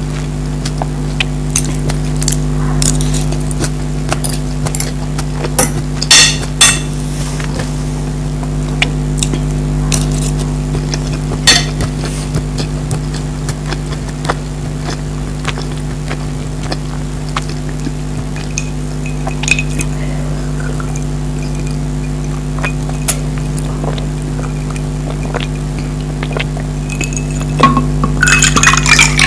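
Eating sounds from a mukbang meal of fried rice and noodles: scattered sharp clicks and clinks, as of a utensil against a plate, over a steady low hum. A louder rustling patch comes near the end.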